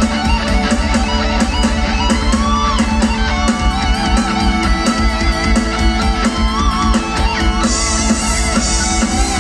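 Hard rock music with no vocals: an electric guitar lead playing bent, wavering notes over drums and bass.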